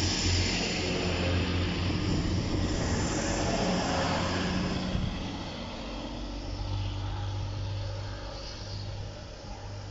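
Diesel train engine running with a steady low throb over rumbling noise, loud at first, then fading after about five seconds as it moves away.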